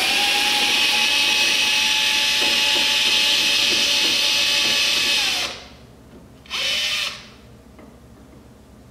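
Cordless screw gun spinning out a rear-wing mounting fastener from under a car's trunk lid: a steady motor whine for about five seconds that winds down, then one more short burst about a second later.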